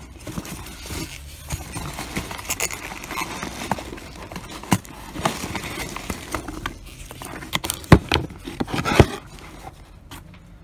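Packing peanuts and plastic wrapping rustling and crackling as a parcel is dug out of a cardboard box, with a few sharp knocks, the loudest two near the end, before it goes quieter.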